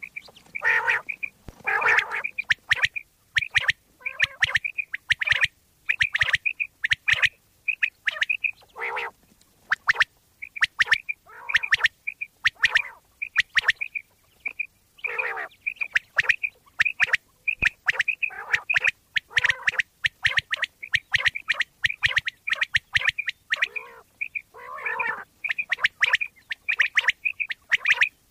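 Common quail calling over and over: short, sharp, high notes mostly in quick groups of two or three, with lower, broader calls in between from time to time.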